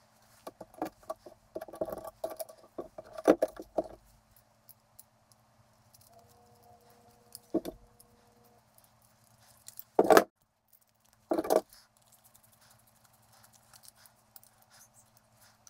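Small screws and the steel electrical box cover and plastic thermostat mounting parts being handled by hand on a workbench. There is a quick flurry of light clicks and rattles in the first few seconds, then a few louder single clacks as parts are set down and handled, about 7, 10 and 11 seconds in.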